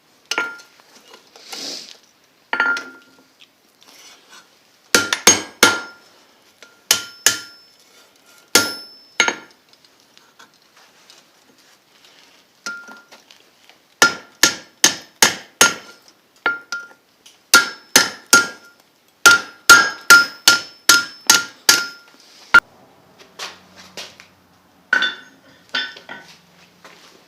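Blacksmith's hammer striking hot steel on an anvil, the anvil ringing after each blow. The blows come in short groups, with a longer steady run of about two to three blows a second in the middle.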